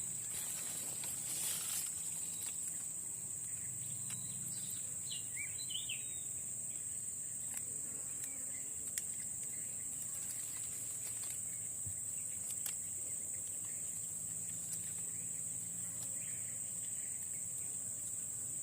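Steady high-pitched insect chorus, crickets or similar, with a few short chirps about five seconds in.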